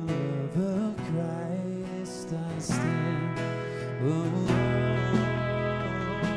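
Worship song played by a band led by acoustic guitar, with a singing voice and sustained notes; a deeper bass note comes in about four and a half seconds in.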